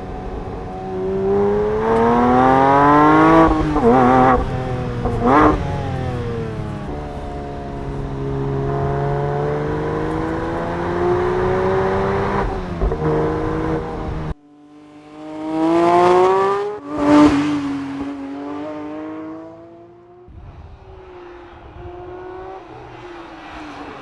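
Porsche 911 GT3 S/C's naturally aspirated 4.0-litre flat-six accelerating hard, its pitch rising through two quick upshifts, then running steadily at speed. After a sudden cut the car rushes past, the engine note climbing and then dropping as it goes by. A quieter engine sound follows, its pitch sinking slowly.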